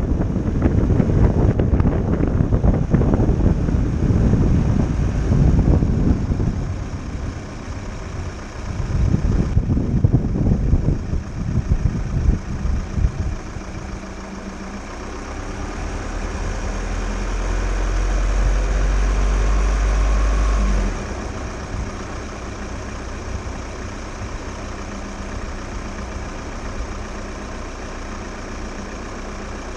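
VW T6 camper van driving downhill. Wind buffets the outside-mounted microphone in gusts for the first dozen seconds. The van's engine then runs as a steady low drone that swells and cuts back sharply a little past two-thirds of the way through, then carries on quieter.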